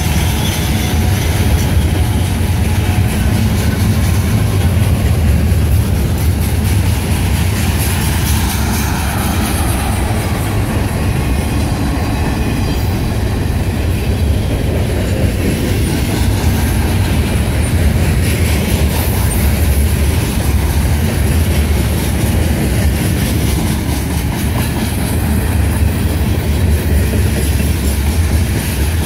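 Freight cars of a mixed train rolling past at close range: a steady, loud rumble of steel wheels on the rails that carries on unbroken.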